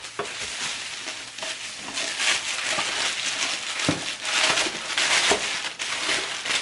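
Plastic bubble wrap crinkling and rustling as a tightly packed item is unwrapped by hand, with irregular crackles that grow louder about two seconds in.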